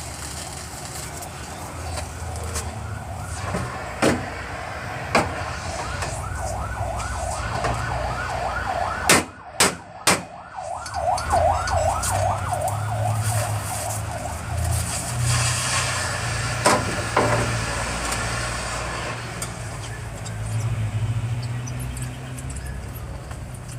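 A siren yelping, its tone sweeping up and down several times a second for about ten seconds, over a steady low engine or traffic rumble. Sharp knocks stand out, the loudest cluster near the middle.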